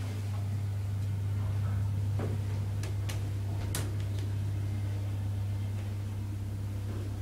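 R&R passenger lift car travelling upward, its machinery giving a steady low hum, with a few faint clicks about two to four seconds in.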